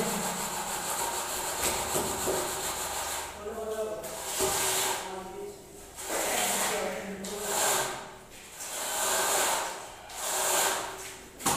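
Long screeding straightedge scraped back and forth over a freshly laid wet cement floor to level it: a series of rasping scraping strokes, each a second or two long.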